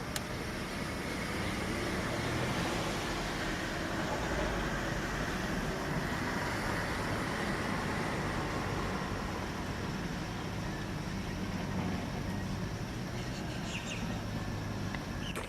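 Road traffic noise: a steady rumble and hiss, swelling a little in the first half.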